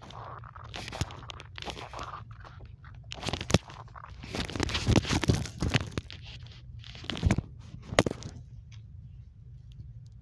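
Fabric and plush rubbing and scraping against a phone's microphone as it is handled, in irregular bursts with two sharp knocks. It is densest in the middle and dies away to quiet about two seconds before the end.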